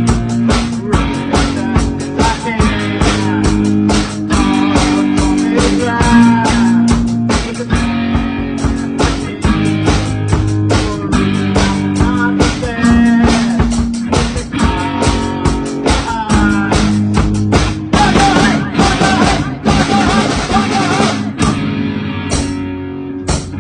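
A live rock band of drum kit, bass guitar and guitar playing an instrumental passage with a steady drum beat under held bass notes. Cymbal crashes build over the last few seconds and the song ends on a few last hits, an ending the band calls off.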